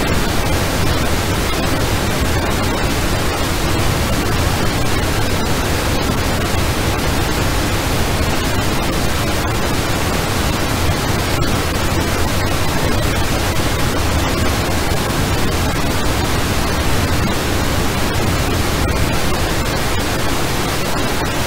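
IHI XF9-1 afterburning turbofan running at maximum thrust in full afterburner on a test stand, a steady, unbroken rush of jet noise with its weight in the low end.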